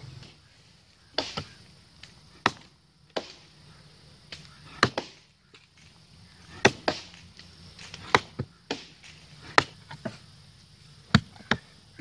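Mattock blades striking into packed soil and chopping through tree roots, a dozen or so sharp, irregular blows, some in quick pairs, as the roots around the trunk are cut.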